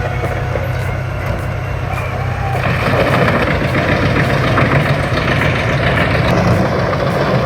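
Truck-mounted wood chipper running, its engine holding a steady low hum as it chips wood. About three seconds in, the chipping grows louder and denser.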